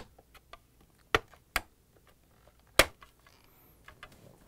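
Plastic snap clips on a Samsung refrigerator water filter housing assembly clicking open as they are pried with a flathead screwdriver: four sharp clicks spread over about three seconds, with faint ticks of plastic between.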